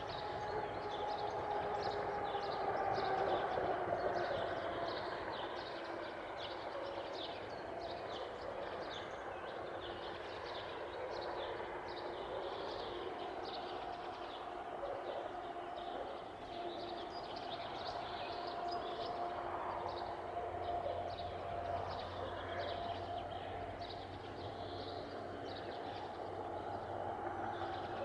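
Small birds chirping repeatedly, a couple of short chirps a second, over a steady distant mechanical hum.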